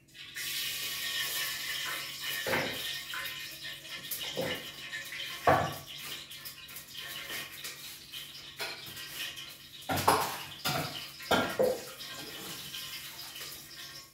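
Water running and splashing steadily, with several knocks and clinks of pots and utensils, the loudest about five and a half seconds in and a cluster around ten to eleven seconds in.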